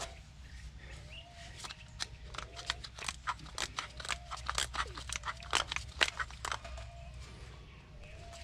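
Irregular sharp metallic clicks and taps from hand tools being handled at the Bronco's front spindle nut. They come thick and fast for a few seconds through the middle, then thin out.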